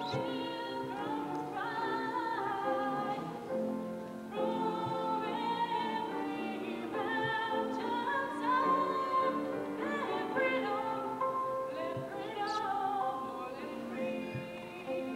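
A choir of young voices singing together in held notes, phrase by phrase with short breaks between them.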